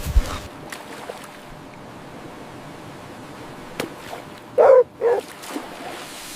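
A dog barks twice in quick succession, two short barks a little over halfway through, over a steady low background hiss.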